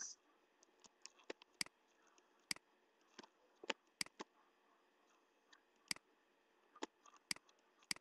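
Computer mouse clicking: a dozen or so short, sharp clicks at irregular intervals over faint background hiss.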